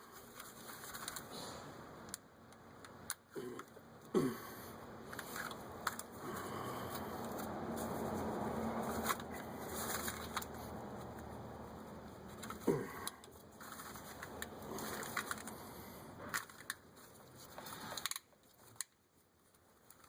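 Hands working the plastic quick-connect fittings of a fuel filter's lines: scattered clicks, short squeaks and rattles, with a longer stretch of rustling in the middle.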